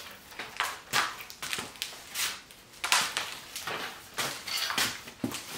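Handling noise from a DeWalt DWX726 steel rolling miter saw stand being tipped over on its wheels, with boot steps on cardboard: a string of short scrapes and knocks, and a sharper knock about five seconds in.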